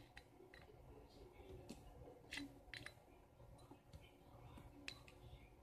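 Faint, scattered clicks and taps of a spoon knocking and scraping inside a small cut-glass bowl, with a sharper pair about two and a half seconds in.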